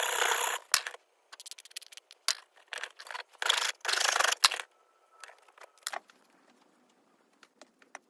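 Hand rasp and file stroking across a wooden handle scale held in a vise: two long scraping strokes with shorter scrapes and taps between. Faint clicks only near the end.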